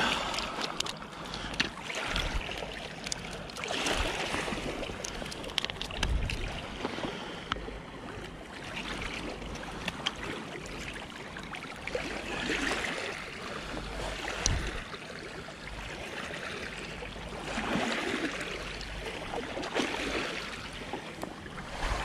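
Small waves lapping on a pebble shore in slow swells, with wind rumbling on the microphone and a few sharp clicks.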